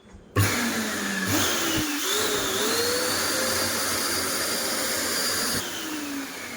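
Kärcher NT 35/1 Ap wet-and-dry vacuum cleaner switched on, its motor whine rising as it spins up, then running steadily. Near the end it is switched off and the whine falls away as the motor runs down.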